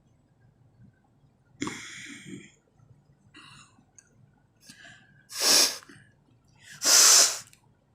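A woman sneezing twice in a row, two loud bursts about a second and a half apart, the second the longer and louder, after a breathy, voiced build-up.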